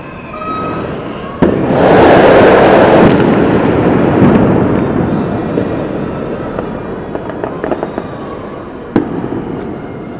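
Street crowd cheering a goal, with fireworks and firecrackers going off. A sharp bang about a second and a half in sets off a loud roar that slowly fades, and another bang comes near the end.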